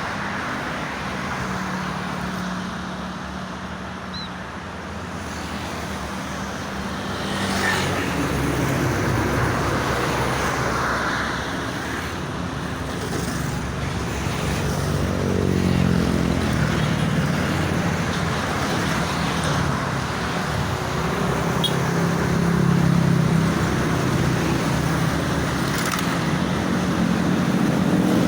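Steady road traffic noise from a busy toll road: a constant rush of tyres with engine drones swelling and fading as vehicles pass.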